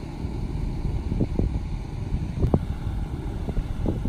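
Wind buffeting the microphone in irregular gusts, over the low running of a pickup truck with a slide-in camper as it drives away.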